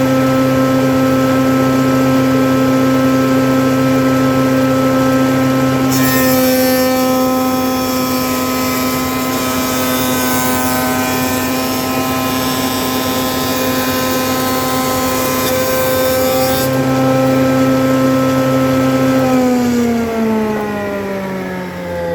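A woodworking machine's knife cutter head runs at speed and cuts a groove along a wooden plank for about ten seconds, starting about six seconds in, then runs free again. Near the end it is switched off and its pitch falls as it spins down.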